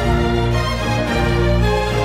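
Background music of sustained held notes, with a new low chord coming in right at the start.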